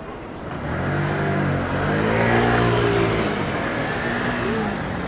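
A motor vehicle's engine passing close by on a city street, its note rising and then falling, loudest a little over two seconds in.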